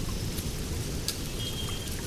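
Steady rain falling on rainforest foliage, with scattered sharp drops landing close by. A brief, thin high note sounds about three-quarters of the way through.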